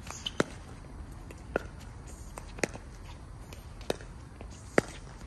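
Pickleball rally: paddles striking the hard plastic ball, sharp single pocks roughly a second apart, about six in all, the loudest near the end.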